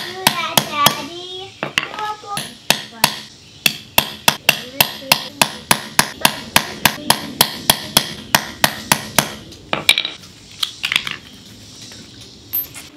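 Ball-peen hammer striking a rivet setter, setting metal rivets through the edge of a leather sheath on a wooden block: a steady run of sharp taps, about four a second, ending about ten seconds in with a few lighter clicks.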